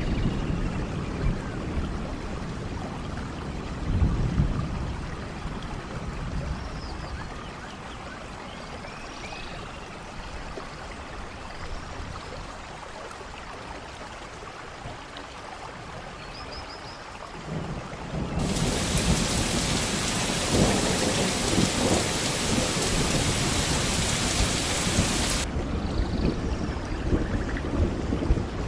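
Steady rain with thunder rumbling: a rumble about four seconds in, a quieter stretch, then from about two-thirds of the way through a louder, hissier downpour over low rumbling that drops back shortly before the end.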